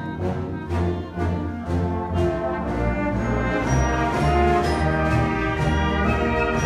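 A school concert band playing, brass to the fore (trumpets, horns, tuba) in held chords over a steady beat of about three strokes a second.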